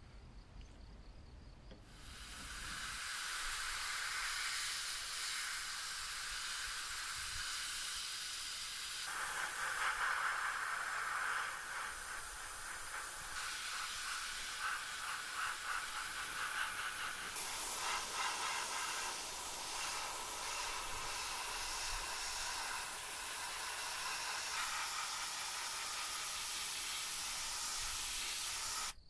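Airbrush spraying paint with a steady hiss of compressed air, starting about two seconds in.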